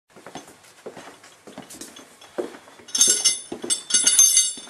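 Footsteps about twice a second with a metallic jingling and clinking, like loose metal pieces shaken while walking, that gets much louder about three seconds in.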